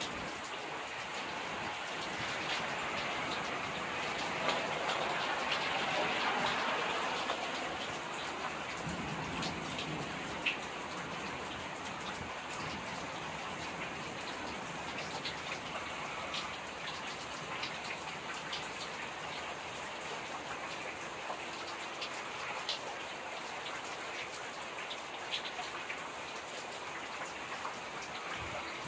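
Heavy rain falling steadily in a summer thunderstorm, swelling louder a few seconds in and then easing back, with scattered sharp drips tapping close by.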